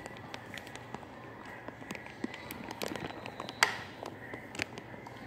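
Handling noise right at the phone's microphone: scattered small clicks and taps from fingers and a grape against the phone. The sharpest click comes about three and a half seconds in.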